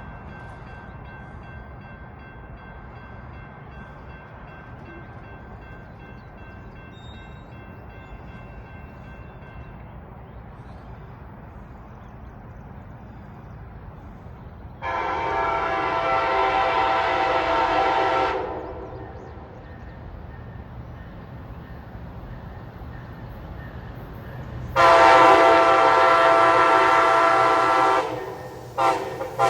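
Amtrak Auto Train locomotive horn, a chord of several tones. It gives a long blast of about three seconds midway and a second long blast near the end, which breaks into short quick toots. Under it runs a low steady rumble as the train approaches, the horn pattern used for a road crossing.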